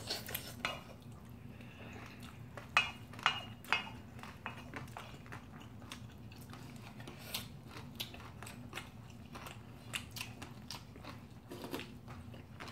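Two people chewing and eating mixed rice (bibimbap), with mouth sounds and scattered sharp clicks of a spoon and chopsticks against a stainless steel bowl, a few louder ones about three seconds in. A low steady hum runs underneath.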